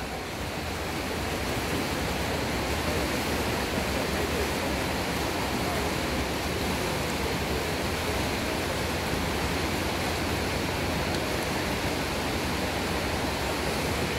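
Steady rushing water noise at a swimming pool as swimmers splash through the butterfly leg of a race.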